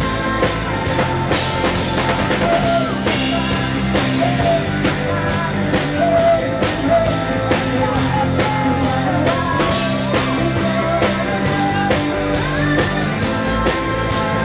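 Live rock band playing at full volume: drum kit keeping a steady beat under guitars, with a voice singing a melody that slides between notes.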